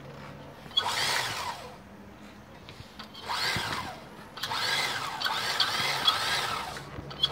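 A small electric motor, like a power tool's, is revved in three short bursts, its whine rising and falling in pitch; the last burst is longer and has several ups and downs.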